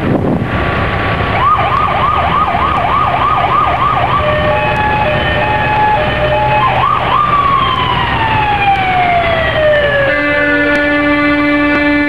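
Electronic vehicle siren yelping rapidly, about three warbles a second, then broken steady horn tones, a short whoop, and a long siren wail winding down in pitch. Near the end a loud, steady chord-like air-horn blast begins.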